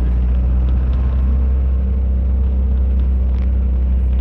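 Bus engine running steadily under way, with a deep constant rumble and road noise, heard from inside the moving bus.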